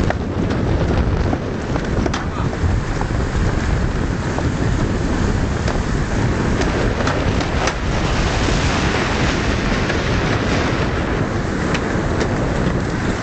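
Wind buffeting the microphone over the rush of water and waves along the hull of an IMX 40 sailing yacht moving fast under sail through a choppy sea, with a few faint clicks.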